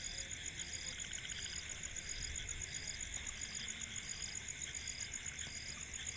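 Insects chirping steadily: a fast, high-pitched pulsing trill, with a second, slightly lower chirp repeating about three times every two seconds.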